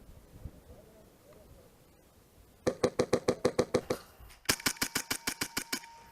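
Airsoft rifle firing two rapid full-auto bursts, a bit over a second each, with a short pause between them.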